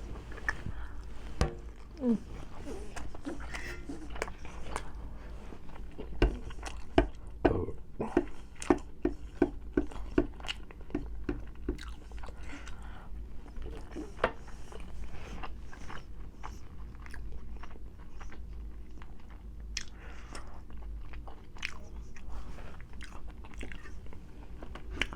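Close-up eating sounds: chewing and biting food, with many short sharp mouth clicks and smacks, thickest about a quarter of the way in.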